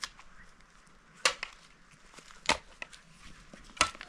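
Sharp knocks repeated at an even pace, four in all, about one every second and a quarter, the second followed closely by a smaller one: a hand tool or object being struck over and over.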